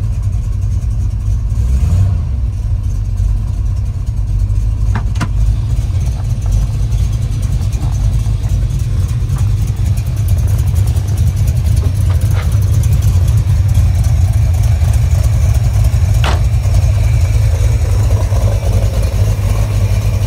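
1972 De Tomaso Pantera's 351 Cleveland V8 idling steadily, warming up after a cold start. It sounds fuller in the second half. Three sharp clicks are heard along the way.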